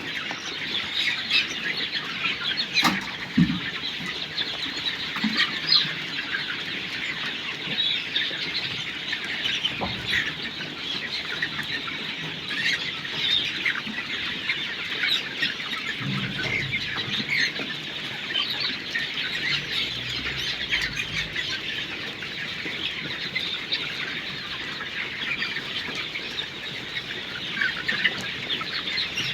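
A large flock of Sonali chickens in a poultry house clucking and chirping continuously, many birds calling over one another, with occasional wing flaps.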